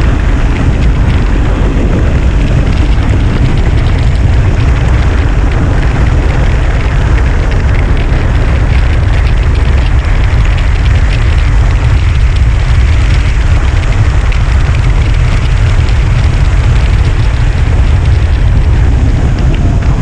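Wind buffeting a GoPro's microphone as a gravel bike rides fast on a gravel road, with the tyres rolling and crunching over the gravel. The noise is loud and steady, heaviest in the deep rumble.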